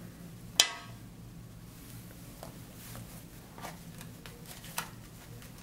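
A single sharp click about half a second in, then a few faint taps, over a low steady hum.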